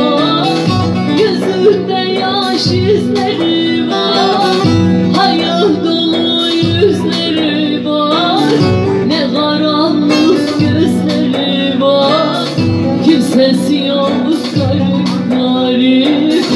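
Live Turkish folk song: a woman's amplified voice singing ornamented, wavering lines over a bağlama (long-necked saz) being plucked and strummed, with a low accent about every two seconds.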